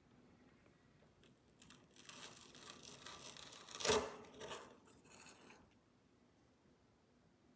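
Metal spoon cutting through a set chocolate ganache layer into soft custard and scooping it up: a wet scraping sound lasting about four seconds, with one louder scrape near the middle.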